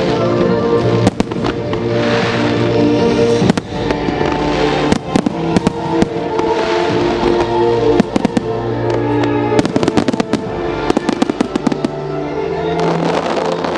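Fireworks display: many sharp bangs and crackles of bursting shells, thickest a little after the middle, over music playing steadily throughout.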